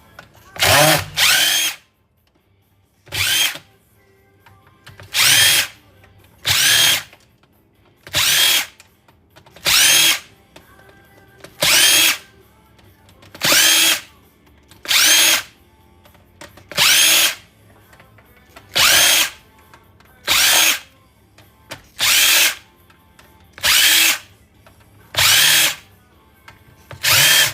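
Power drill backing screws out of a stereo receiver's case in short bursts, about one every one and a half to two seconds. Each burst has a rising whine as the motor spins up.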